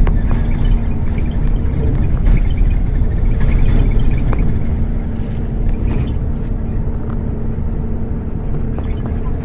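Steady low rumble of a moving road vehicle, with a faint engine hum and scattered small knocks and rattles.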